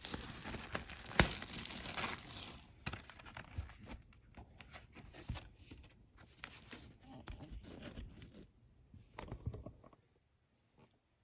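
Packaging on a vinyl LP being torn open and crinkled, loudest and densest for the first few seconds, then thinning out to scattered rustles and light clicks of handling. It stops near the end.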